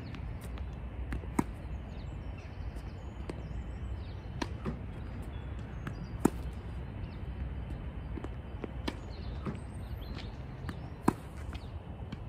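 Tennis racket striking balls three times, about five seconds apart, each a sharp pop, with fainter ticks of balls bouncing and being fed by the ball machine in between. Birds chirp faintly over a steady low outdoor rumble.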